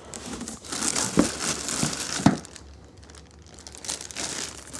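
Packaging being crumpled and crinkled by hand, with a few sharp crackles, in two spells: a longer one in the first half and a shorter, quieter one near the end.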